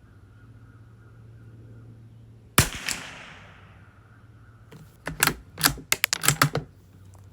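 A single shot from a Savage Mark II bolt-action .22 LR rifle firing SK Pistol Match subsonic ammunition: one sharp crack with a short fading echo. About two seconds later, a quick run of about eight metallic clicks as the bolt is worked to eject the spent case and chamber the next round.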